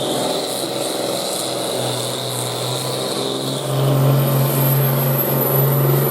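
Farm pulling tractor's diesel engine running steadily at the track, with a high thin whistle over the engine note; the engine gets louder a little over halfway through.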